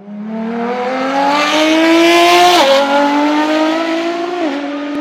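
Car engine accelerating hard through the gears, its pitch climbing steadily and dropping sharply at two upshifts, one about halfway through and one near the end.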